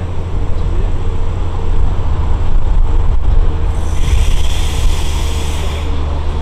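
Metro-North M8 electric multiple unit moving slowly past, with a steady low rumble and hum. About four seconds in, a hiss joins for about two seconds, then stops.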